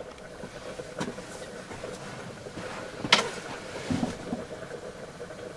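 Gas cooker ring hissing steadily under a simmering pot, with a click about a second in, a sharper clack about three seconds in and a couple of dull knocks just after.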